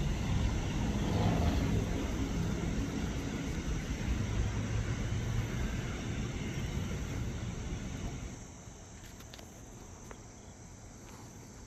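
A freight train rumbling as it pulls away into the distance, the sound dropping off sharply about eight seconds in. Insects chirp faintly after that.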